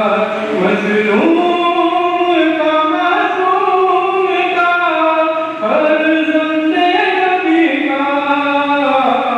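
Voices chanting a noha, a Shia lament, unaccompanied, in long held and gliding phrases, with new phrases starting about a second in and again just past halfway.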